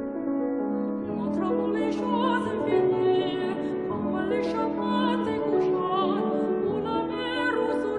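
A classical voice singing an art song with vibrato, accompanied by piano.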